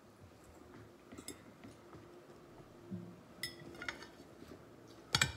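Faint, scattered clinks of cutlery against dishes, a handful of light knocks a second or so apart, the loudest just before the end.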